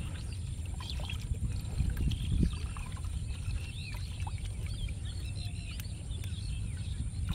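Water splashing and dripping as a catch of small fish is shaken out of a mesh net bag into a water-filled plastic crate, the fish flapping in the water, over a steady low rumble.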